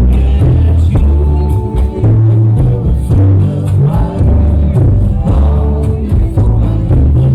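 Loud dance music with a heavy bass line and a steady, fast beat, played for freestyle dancing.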